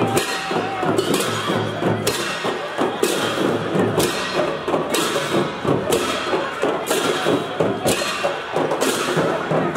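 Percussion music with drums and a sharp clash on every beat, keeping a steady rhythm of about three strikes every two seconds.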